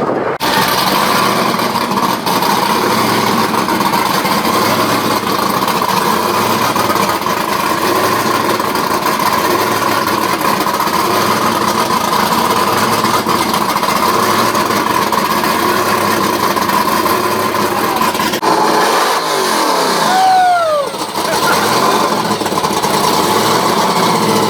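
A burnout car's engine held at high revs, loud and steady, through a long burnout. About three-quarters of the way through the revs drop and climb back, then hold high again.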